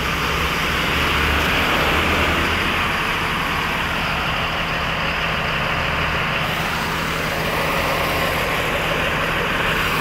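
Mercedes-Benz coach's diesel engine idling steadily: a constant low hum with an even hiss over it.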